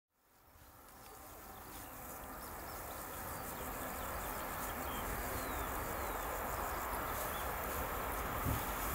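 Insects chirping in the grass, with a low rushing noise from a distant freight train that grows steadily louder as it approaches. The sound fades in at the start, and there are a few short bird chirps near the middle.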